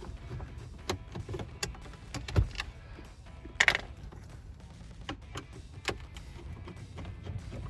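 Phillips screwdriver backing out the screws that hold a car's factory radio in the dash: scattered small clicks and knocks of metal on plastic, with a sharper knock a little after two seconds in and a brief scraping rustle about halfway through.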